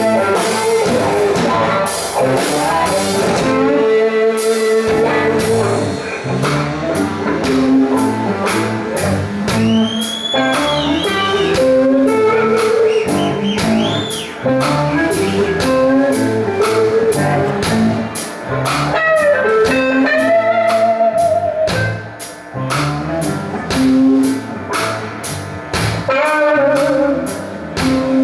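Rock band playing live: a lead electric guitar bending notes over a steady drum beat and bass.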